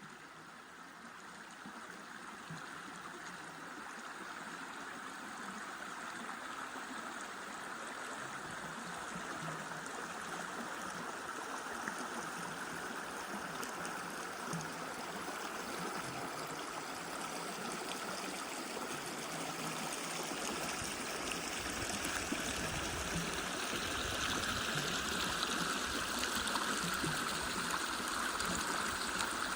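Mountain stream burbling and rushing over rocks, a steady wash of water that grows gradually louder, with a deeper rumble joining in about two-thirds of the way through.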